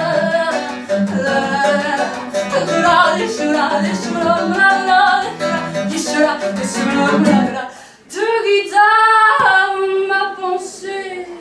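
A woman singing live with acoustic guitar accompaniment: the guitar strums quickly under her voice, then after a brief drop about eight seconds in she holds long sung notes over lighter guitar.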